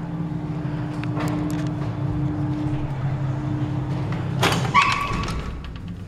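Old Waygood Otis birdcage elevator running: a steady motor hum with a few light clicks, then, about four and a half seconds in, a loud metallic clunk with a short ring as the car comes to a stop at a floor.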